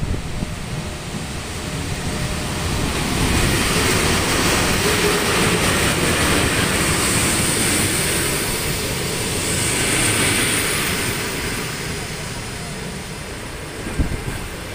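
EP1M electric locomotive and its passenger coaches rolling into the station past the platform: a steady rumble and hiss of wheels on rails. It is loudest in the middle and eases toward the end as the train slows. One sharp knock comes near the end.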